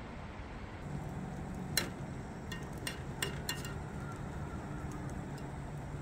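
A few light metal clinks, like utensils knocking against cookware, about two to three and a half seconds in, over a steady low hum.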